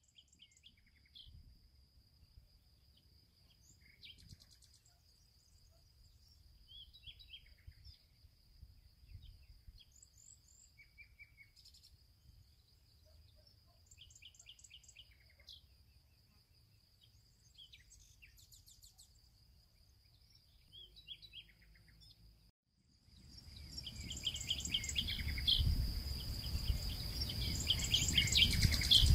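Small birds chirping in short, quick calls over a steady high-pitched whine and a faint low rumble. A little before the end the sound drops out for a moment. It then comes back much louder, the chirping thicker, over a rushing background noise.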